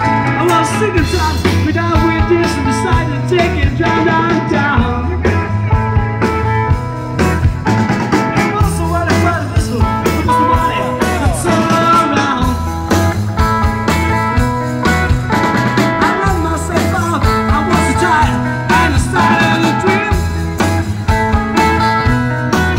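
Rock band playing live, a blues-rock passage with guitar over bass and drums.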